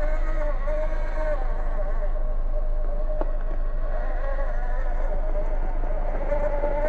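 The brushless motor and drivetrain of a Furitek Fury Wagon 1/18-scale RC crawler, a buzzing whine whose pitch wavers up and down with the throttle as the truck crawls.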